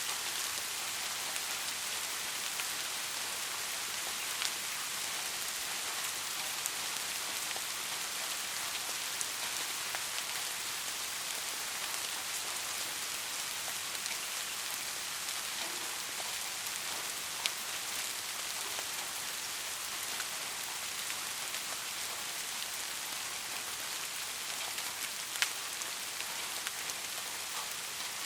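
Steady soft rain falling on a surface, an even hiss with occasional single drops ticking louder, one sharper drop near the end.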